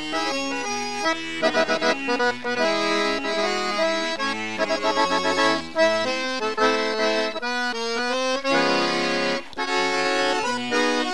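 Instrumental opening theme music: a quick-moving melody over chords and a bass line, with no singing or speech.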